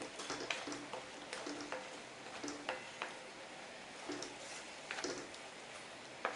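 Chicken pieces frying with powdered spice masala in oil, a steady sizzle under irregular clicks and knocks of a spoon stirring and tapping against the pan.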